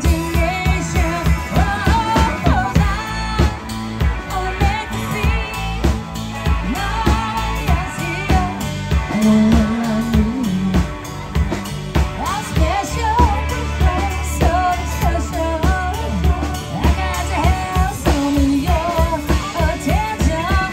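A woman singing a pop song with a band, over a steady drum beat and bass.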